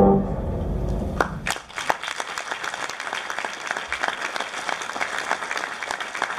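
Sustained music tones fading out, then an audience applauding from about a second and a half in.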